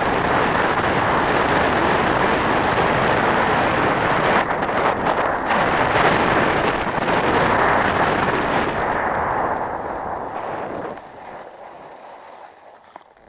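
Wind buffeting the camera's microphone and skis hissing over packed snow during a fast downhill run, a loud steady rush that drops off sharply about eleven seconds in.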